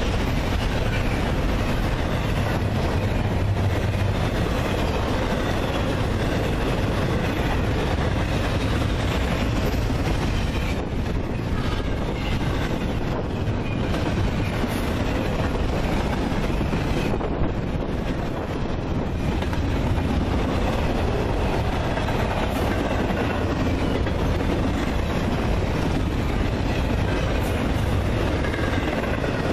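Double-stack intermodal freight train of container well cars passing close by: a steady, loud noise of steel wheels running on the rails.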